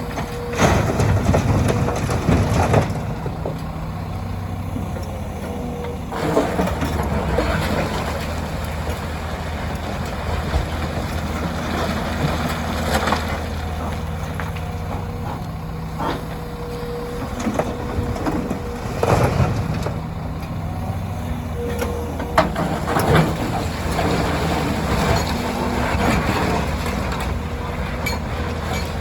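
Diesel engines of a Hyundai 300LC excavator and a dump truck running steadily. Several bursts of clattering come as loads of rock aggregate are dropped from the bucket into the truck bed.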